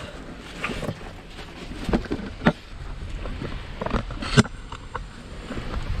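Stream water running out from under a rock lip inside a small cave, with irregular knocks and scuffs over it. The two loudest knocks come about two and a half and four and a half seconds in.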